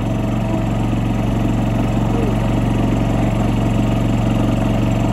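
A golf cart's motor running at a steady speed: a constant, even hum with no change in pitch.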